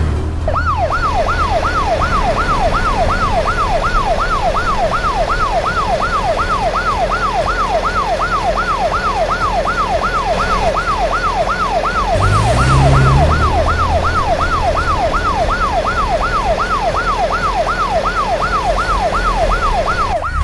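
Police car siren in a fast wail, its pitch rising and falling about twice a second, over a low car engine hum that swells briefly about twelve seconds in.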